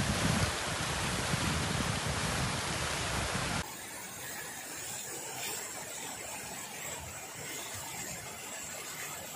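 Rows of fountain jets spraying and splashing into a pool: a steady rush of water. A little over three seconds in it drops suddenly to a quieter, more distant rush.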